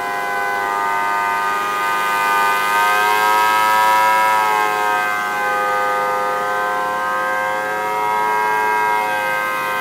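3D-printed scale model of a Federal Signal Thunderbolt siren sounding a steady two-tone chord from its 4/5-port chopper as its horn rotates. It swells louder about four seconds in as the horn swings toward the listener, and again near the end.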